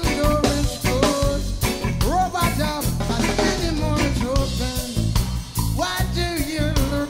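Background music: a song with a steady drum beat and a melodic lead line over it.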